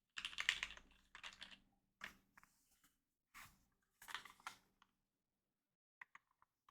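Rotary encoder knob on a Satisfaction 75 R2 mechanical keyboard turned in short flurries, its detents clicking rapidly about five times over, then a few faint single ticks near the end.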